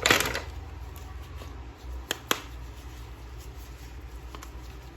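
Hands handling a plastic action figure and its packaging: a brief rustle at the start, then two sharp clicks a little over two seconds in, with faint ticks after.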